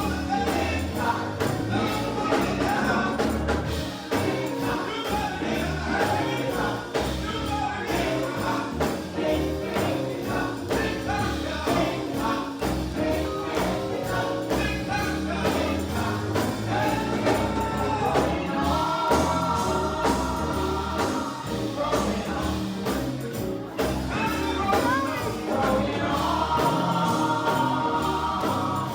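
Live gospel group singing, a lead singer with the group joining in, with long held chords near the middle and again near the end.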